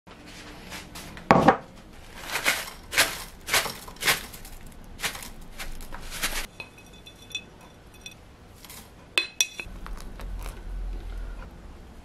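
Kitchen handling sounds while making loose herbal tea: a run of short knocks and scrapes, then a few ringing clinks of a metal mesh tea strainer against a ceramic mug. A low steady hum comes in near the end.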